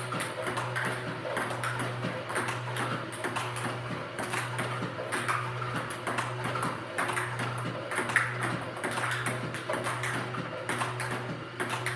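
Table tennis ball struck again and again with backhand topspin strokes: sharp clicks of the ball on the bat and table in a quick, steady rhythm. A steady low hum runs underneath.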